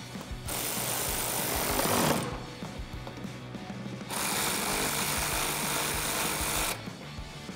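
Power tool with a 10 mm socket running splash-shield bolts in, in two bursts of a couple of seconds each, the first building to its loudest just before it stops.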